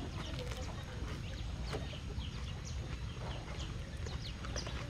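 Chickens clucking, short falling calls scattered through, over a steady low rumble.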